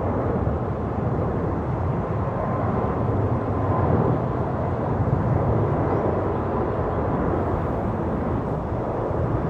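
Jet airliner engines running, a steady noise with a faint thin tone above it, heard from outside the airport.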